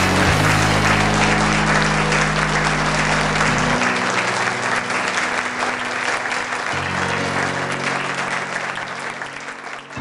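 Audience applauding over backing music with a steady low bass line; the clapping eases off toward the end.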